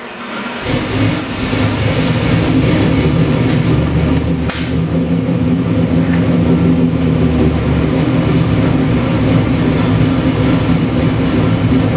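Ford 427 cubic-inch Windsor stroker V8 with electronic fuel injection firing up about half a second in, then running steadily.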